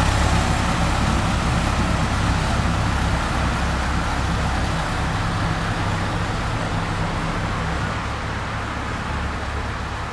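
Small narrow-gauge diesel locomotive's engine running steadily as it moves off down the track, growing gradually fainter.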